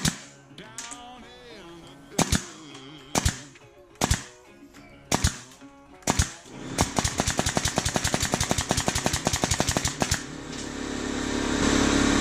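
A series of sharp, loud bangs: six single shots about a second apart, then a fast rapid-fire run of about ten a second, followed by a steady machine noise that builds up near the end.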